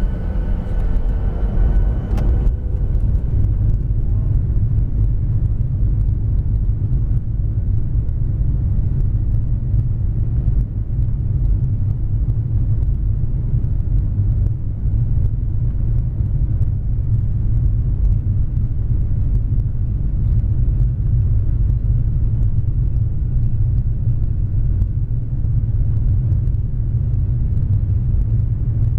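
Jet airliner cabin noise from a window seat beside the engine during takeoff: a loud, steady low rumble of the jet engines. A few faint whining tones stop about two seconds in.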